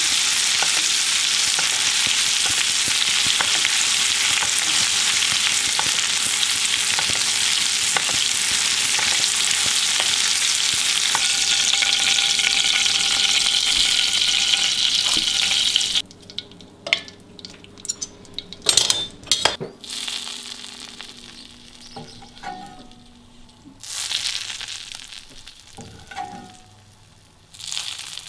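Butter sizzling and spattering in a hot skillet as a steak is basted with a spoon, loud and steady, then cutting off suddenly about two-thirds of the way through. After that, a few scattered clicks and clinks over a much quieter background.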